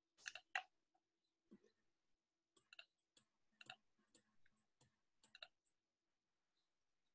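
Faint, irregular computer mouse clicks, about ten of them, stopping about five and a half seconds in, over a faint steady hum.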